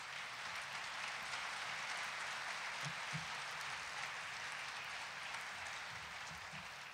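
Audience applauding: steady clapping from the crowd that begins to taper off near the end.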